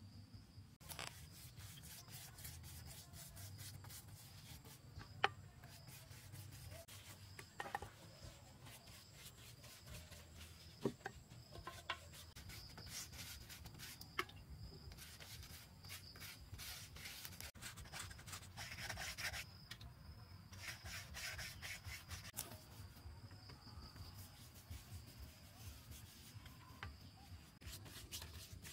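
Quiet scraping and rubbing of hand work, with a few sharp knocks, over a steady high insect drone.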